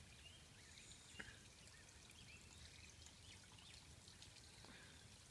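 Near silence: faint outdoor ambience with distant birds chirping over and over, and a single faint click about a second in.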